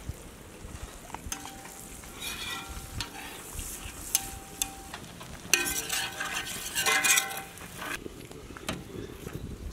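Metal spatula scraping and clinking against a steel griddle and steel plates in several strokes, each with a short metallic ring, the longest and loudest in the second half, over the light sizzle of French toast frying.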